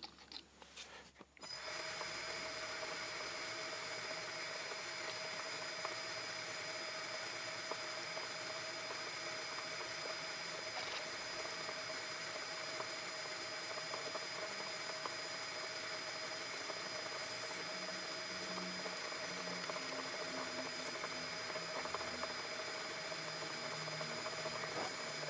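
Metal lathe starting about a second and a half in and running steadily with a constant whine, while a 2.7 mm drill in the tailstock chuck drills the tapping hole for a 5BA thread into a spinning steel valve blank.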